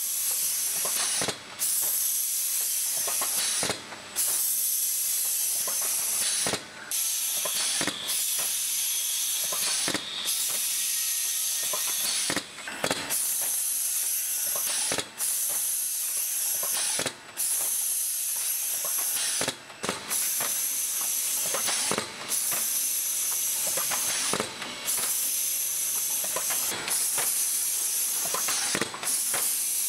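An automatic tray-forming machine running: a steady hiss with short mechanical clicks and knocks from its moving parts. The hiss breaks off briefly about every two and a half seconds.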